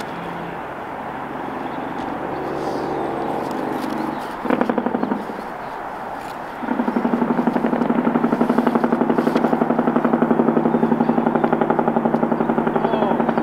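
A small engine running with rapid, even firing pulses. It gives a short burst of revs about four and a half seconds in, then is revved up and held louder from about seven seconds in until it drops back near the end.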